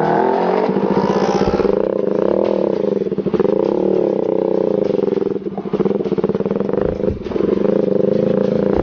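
Motorcycle engine pulling away from a standstill and riding on, its note rising and falling with the throttle, with short dips about five and a half and seven seconds in.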